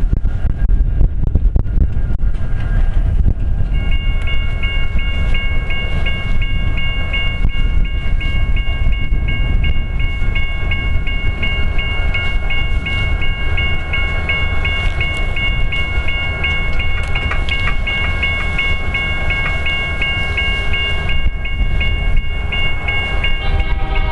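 A railroad grade-crossing bell rings in quick, even strokes, starting about four seconds in and stopping just before the end. Under it runs a steady low rumble of locomotives and blizzard wind.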